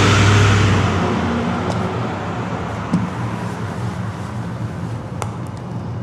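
A car driving off, its engine and road noise fading away over the first two seconds and leaving a low steady hum.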